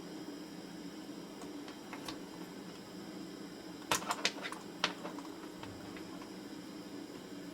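Steady low hum with a quick run of four or five small sharp clicks and taps about four seconds in, from hand tools at work desoldering a chip from a circuit board.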